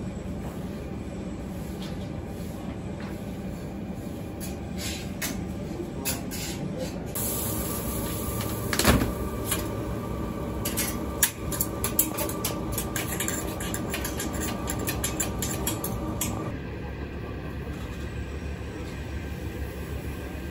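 Street food stall at work: a steady low hum of street noise, with metal tongs clicking and clattering against a steel griddle through the middle, and one louder clatter about nine seconds in.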